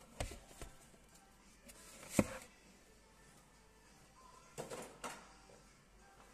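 A few faint clicks and soft knocks of handling over quiet room tone, the loudest a single sharp click about two seconds in and a short cluster of clicks near the end.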